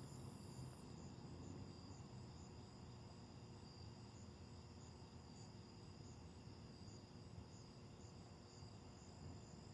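Faint night insects, crickets, chirring steadily in high thin tones, with a regular faint pulsing on top, over a low, even rumble.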